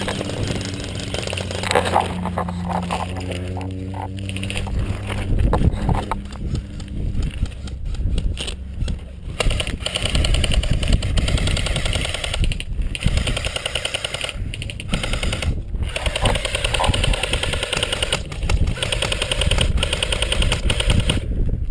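Airsoft electric rifles firing in rapid full-auto bursts, a fast rattle of shots in runs with short pauses between them.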